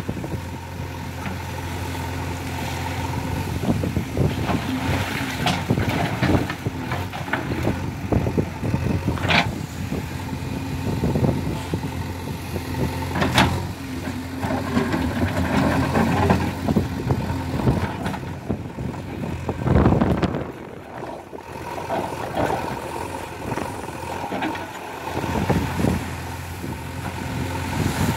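JCB 3DX backhoe loader's diesel engine running steadily under varying load while the backhoe arm digs mud from a shallow pond, with a few sharp metallic clanks from the bucket and arm.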